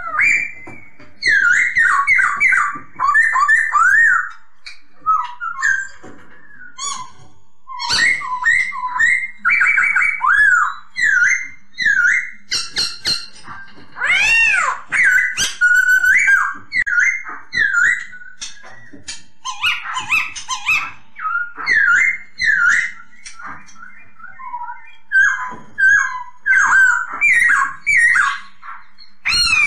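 Black-throated laughingthrush (poksay Hongkong) singing: loud, rapid phrases of whistled notes that swoop up and down, in bursts with short pauses between them.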